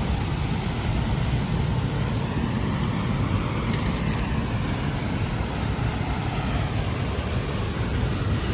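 Waterfall: water rushing steadily, with a strong low rumble.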